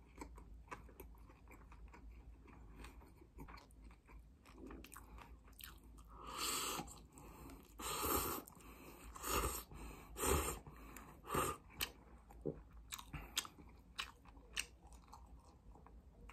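Close-up eating sounds from cup udon noodles: faint mouth clicks and chewing, then a run of about five louder slurps from the cup in the middle, followed by lighter chewing clicks.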